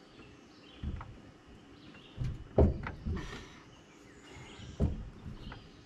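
Dull metal knocks and clunks of a Yamaha 115 outboard's lower unit being pushed up against the midsection while its driveshaft is worked into place: three main thuds, the loudest about two and a half seconds in.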